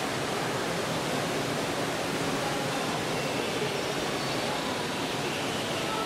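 Steady rushing noise of the indoor exhibit hall, even and unbroken.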